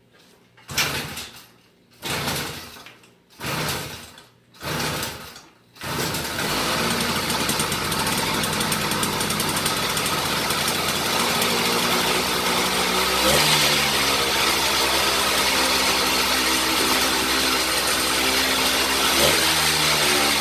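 Small two-stroke motorized-bicycle kit engine being started: four short bursts as it is turned over and briefly fires, then it catches about six seconds in and keeps running, its revs shifting about halfway through and again near the end.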